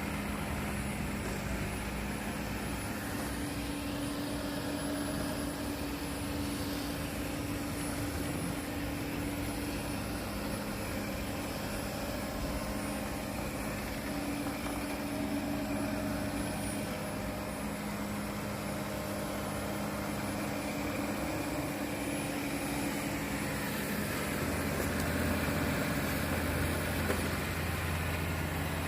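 Fakir Robert RS 770 robot vacuum running: a steady motor hum over a hiss of suction, growing a little louder and deeper near the end.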